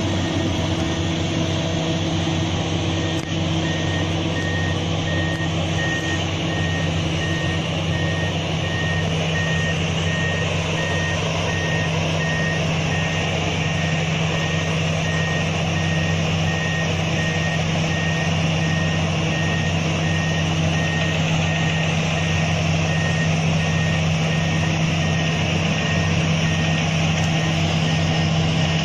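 Diesel engine of a heavy earth-moving machine (bulldozer or excavator) running steadily, with its reversing alarm beeping in an even rhythm from a few seconds in until near the end.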